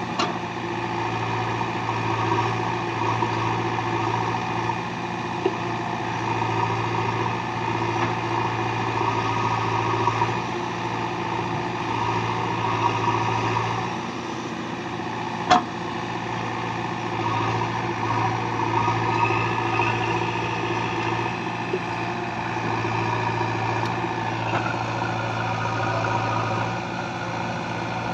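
JCB 3DX backhoe loader's diesel engine running steadily, its sound swelling and easing in stretches of a few seconds as it works. One sharp knock comes about halfway through.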